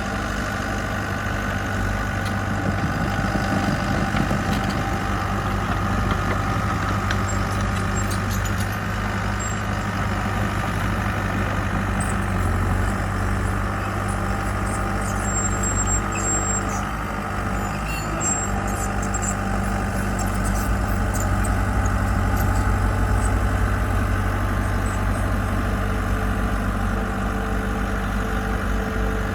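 Diesel engine of a construction machine running steadily at an even pitch and level.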